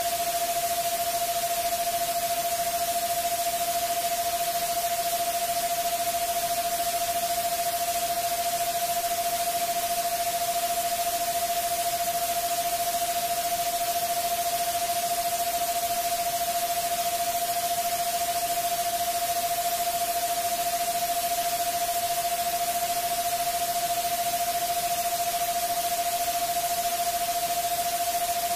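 Generated 'subliminal frequency' track: a single steady mid-pitched pure tone held without change over a constant bed of white-noise hiss.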